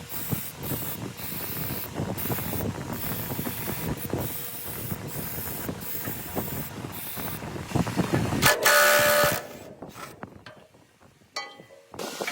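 A steady hissing spray, cut off by many brief pauses. About three quarters of the way through comes a short, loud pitched screech, followed by quieter scattered ticks.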